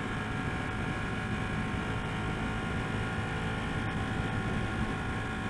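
Ducati 1199 Panigale S's Superquadro V-twin running on the road at a steady, constant pitch. It is cruising at speed under light throttle, with wind and road noise underneath.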